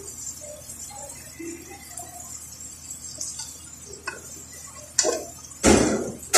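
Wooden spatula stirring food in a stainless steel pot: a few light knocks against the pot, then a louder scrape lasting most of a second near the end.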